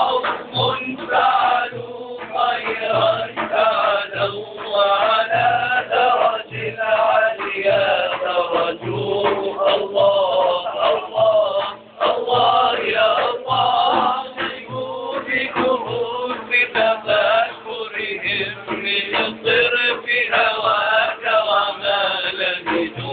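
A group of male voices sings an Arabic nasheed (devotional praise song) together, with a hand-held frame drum (daf) keeping a steady beat under the singing.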